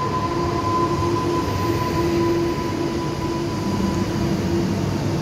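Newag Impuls 2 electric multiple unit rolling in alongside the platform: the electric whine of its traction drive over the rumble of its wheels, with a higher tone that fades about halfway through.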